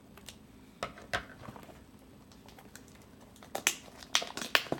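Sharp clicks and snaps from a cardboard and plastic-wrapped trading card box being pried and cut open: a couple of single clicks about a second in, then a quick cluster of several near the end.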